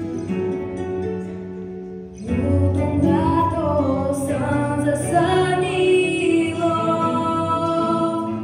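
A girl singing solo over a plucked-string accompaniment; the instrumental notes play alone at first and her voice comes in about two seconds in.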